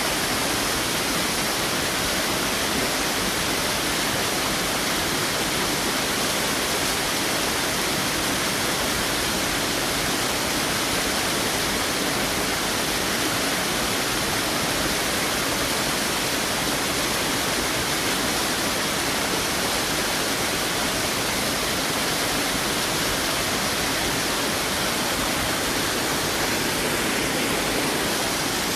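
Waterfall rushing steadily: an even, unbroken hiss of falling water that does not change.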